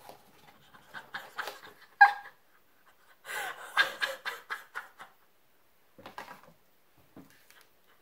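A woman laughing and gasping with excitement in quick breathy bursts, with a short, sharp high-pitched cry about two seconds in.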